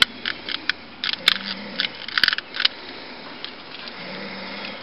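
Trigger of a long-nosed butane utility lighter clicked over and over, about a dozen sharp clicks in the first two and a half seconds, some in quick pairs. It is failing to light a gas grill's burner.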